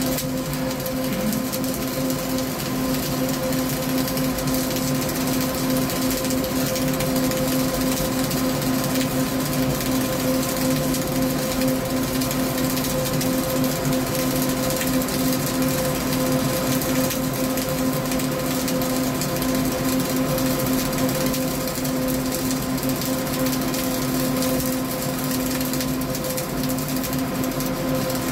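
CO2-shielded flux-cored arc welding (FCAW) laying a continuous vertical-up bead: the steady, unbroken crackle of the arc, with a steady hum beneath it.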